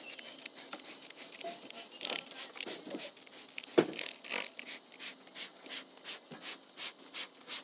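Hand trigger spray bottle squirting cleaner onto an RV rooftop air conditioner's coil in quick repeated pumps, about four short hissing squirts a second. A louder knock comes about four seconds in.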